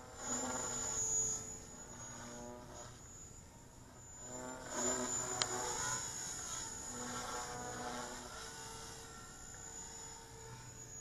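Oxy 2 electric RC helicopter flying at a low 3,700 RPM head speed with 205 mm blades. Its rotor and motor hum rises and falls in pitch, swelling louder about a second in and again around five seconds in as the collective changes, over a steady thin high whine. There is one sharp tick about five seconds in.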